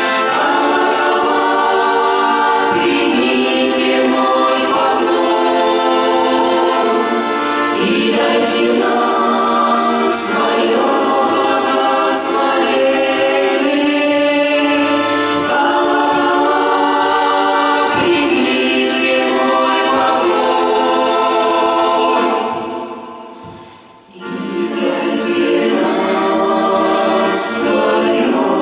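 Folk vocal ensemble singing a choral song in harmony, holding long chords. The voices fade out a little past the two-thirds mark and come back in a second or two later.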